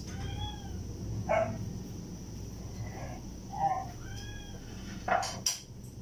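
A cat meowing twice, each a short call that rises and falls in pitch, with a few sharp knocks in between.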